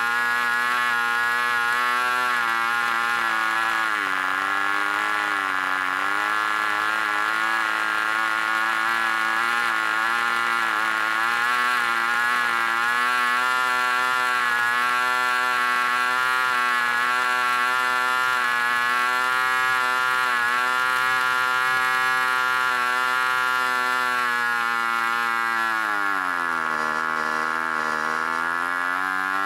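D-C Tornado Twin, a just-under-5cc boxer-twin glow engine, running flat out on a test stand with an 11x6 propeller: a steady high buzzing drone. Its revs dip briefly about four seconds in and sag deeply for a few seconds near the end before picking up again, which the owner suspects comes from the needle being leaned out a little too much so that it ran hot.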